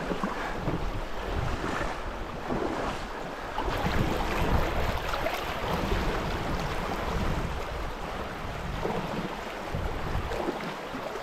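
River water rushing and lapping past a canoe's hull, with gusts of wind buffeting the microphone.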